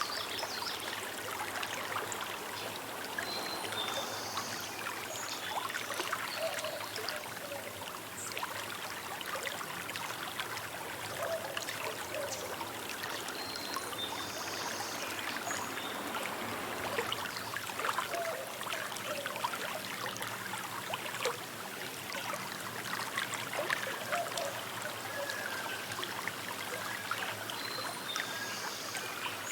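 Small river babbling and trickling steadily over stones. A few short bird calls sound faintly over the water, about 4 s, 14 s and 28 s in.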